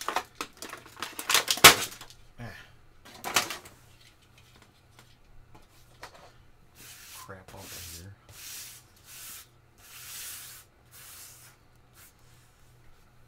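Clear plastic blister packaging crackling and clattering as an action figure is worked out of it, loudest in the first few seconds, then a few soft rustles later on.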